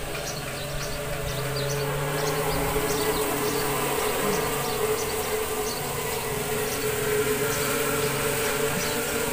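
A dense cluster of honeybees from a freshly captured swarm, newly housed in a box hive, buzzing close up: a steady low hum with faint light ticks scattered through it.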